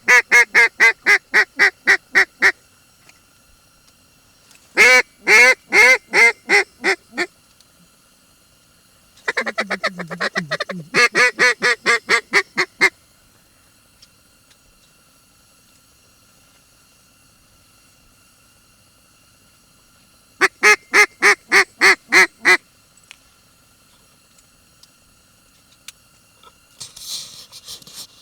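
Duck quacks in four runs of about ten evenly spaced quacks each, loud and clear, with long pauses between runs. A short rustle comes near the end.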